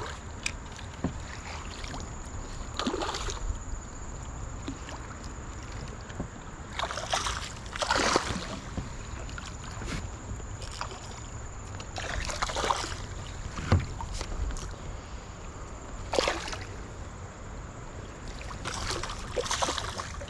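Water splashing and sloshing in short bursts, about five times, as a hooked shoal bass is played in. A low wind rumble and a faint steady high tone run underneath.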